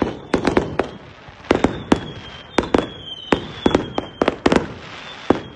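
Fireworks display: an irregular, rapid series of sharp bangs, often several a second, each fading quickly, with a thin high tone sliding slowly downward behind them.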